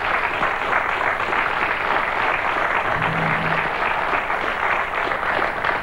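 Studio audience applauding steadily for a correct answer.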